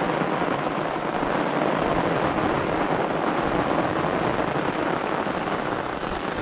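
Steady rain falling hard on a canvas awning overhead and on the lake, an even hiss with no breaks.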